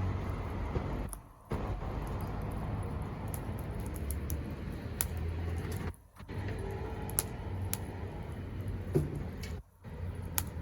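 Wood campfire burning: a steady rushing noise with scattered sharp crackles and pops. The rush cuts out briefly a few times.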